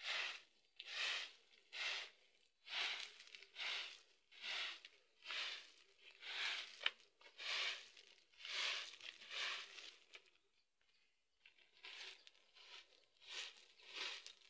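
A bundle of leafy branches swept over bare dirt ground, making repeated scratchy swishes about one a second with a short pause about two-thirds of the way through.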